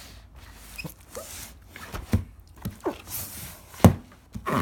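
A plastic-wrapped cardboard box being turned over and handled: rubbing and squeaking of the wrap, with two dull knocks, one about two seconds in and one near the end.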